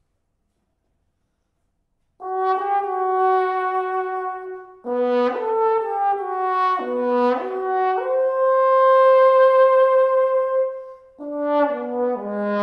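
Brass-led chamber ensemble (trumpet, trombone and bass clarinet) entering about two seconds in with long held chords that shift step by step, breaking off briefly twice before the next phrase.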